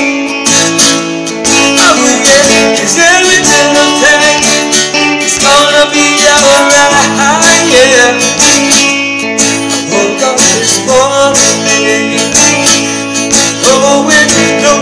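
Acoustic guitar strumming chords, with a melody line wavering over them.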